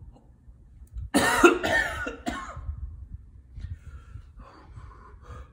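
A man coughing hard three times in quick succession about a second in, from the burn of the super-hot One Chip Challenge pepper chip, then quieter breaths.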